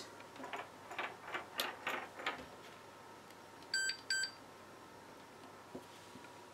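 Faint clicks of small alligator test clips being handled and clipped onto a relay's terminals, then two short electronic beeps from test gear a little under four seconds in.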